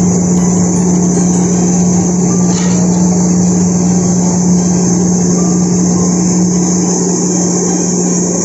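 Steady machine hum: a constant low drone with a hiss above it, unchanging throughout.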